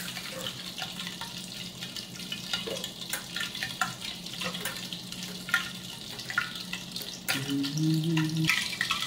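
Butter and oil sizzling steadily in a hot, lidded steel pot. A kitchen knife clicks and taps now and then on a wooden cutting board as an onion is peeled.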